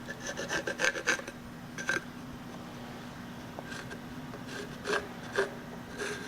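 Pencil drawing cut lines on a wooden block: short scratchy strokes, a quick run of them in the first second, then a few scattered strokes later, over a faint steady hum.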